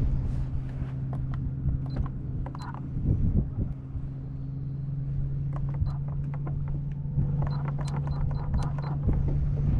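Steady electric hum of a boat's trolling motor, with wind rumbling on the microphone and scattered light clicks, a cluster of them near the end.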